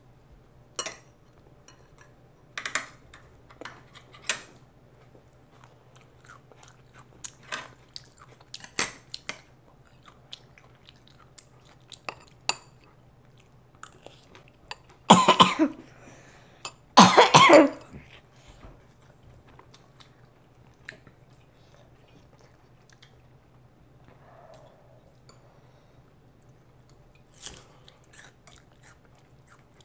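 Close-miked mouth sounds of a child chewing food, smacking and clicking at scattered moments, with two loud bursts about halfway through. A faint steady low hum sits underneath.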